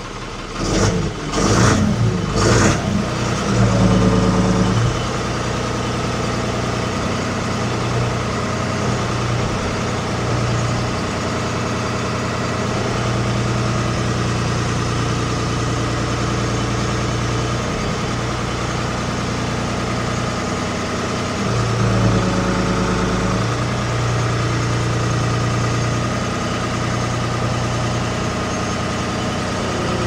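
1975 Ford 550 backhoe's diesel engine running steadily as its front loader hydraulics are worked, the engine note strengthening under load about four seconds in and again around twenty-two seconds. A few clunks in the first three seconds.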